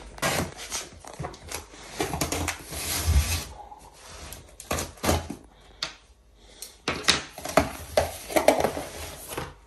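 Packing tape on a cardboard box being slit open with a key, then the cardboard flaps pulled open, with a run of scraping, tearing, rustling and knocking of cardboard.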